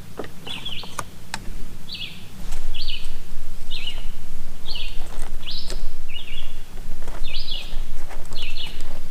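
A bird chirping over and over, a short chirp about every three-quarters of a second, with a few sharp clicks near the start. A steady low hum underneath gets louder about two and a half seconds in.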